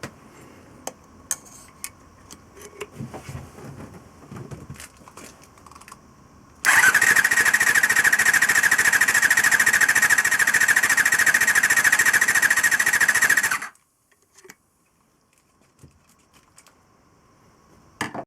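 Honda MC14E 250 cc inline-four motorcycle engine cranked on its electric starter for a compression test: a steady, fast, even cranking whir that starts about six and a half seconds in, runs about seven seconds without the engine firing, and stops abruptly. Before it come light clicks and knocks of handling.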